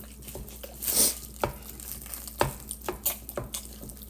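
Meat chopper jabbing into raw 73% lean ground beef in a plastic-lined slow cooker, breaking it up: a series of irregular short strikes, the loudest about a second in.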